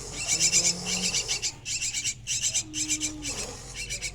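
A young jalak (Asian starling) calling in repeated bursts of rapid, harsh chattering.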